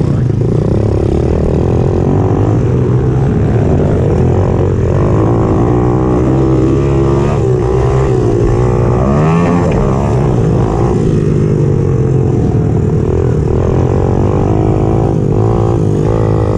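Pitbike's small four-stroke single-cylinder engine running hard on a race lap, its pitch climbing and falling with throttle and gear changes, with a sharp rising rev about nine seconds in.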